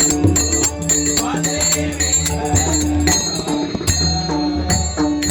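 Instrumental passage of a Marathi devotional bhajan: held melodic notes over a steady beat of drum strokes and jingling percussion.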